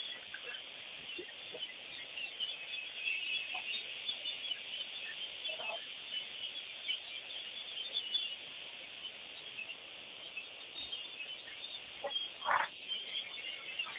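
Birds calling at a waterhole: a dense, continuous chatter of high chirps, with a couple of louder, lower calls, one about six seconds in and one near the end.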